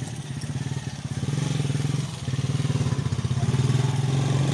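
Motorcycle engine running under way, a steady rapid pulsing that grows louder from about a second in.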